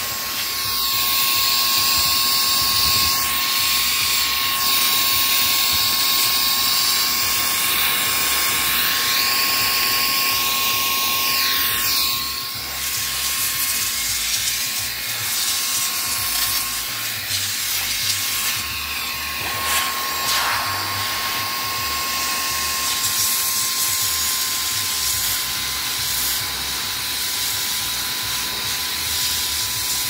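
Mini vacuum cleaner and blower with a brushless motor running continuously: a steady high whine over a loud rush of air. The air noise shifts as the long nozzle is moved around the keyboard.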